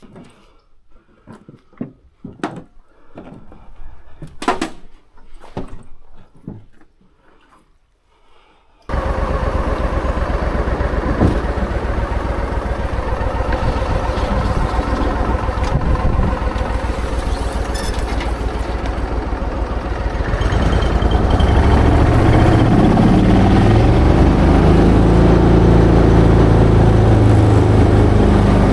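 Scattered rustling and crunching, then about nine seconds in a motor engine comes on suddenly and runs steadily. It grows louder at about twenty seconds, as if revved or pulling away.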